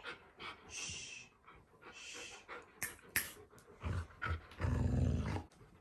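Alaskan malamutes panting and sniffing up close in a string of short breaths, with a couple of sharp clicks about three seconds in and a louder low rumble shortly before the end.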